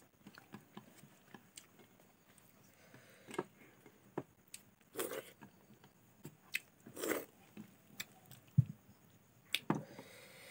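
Close-up eating sounds: chewing and small wet mouth clicks and smacks, scattered and irregular, as food is eaten with the fingers. Near the end comes one short low knock, the loudest sound.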